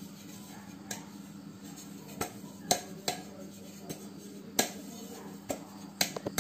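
Light, sharp knocks on a hand-held aluminium cake pan, about eight at irregular intervals, as it is tapped and turned to spread the dusting of flour over its greased sides and knock out the excess.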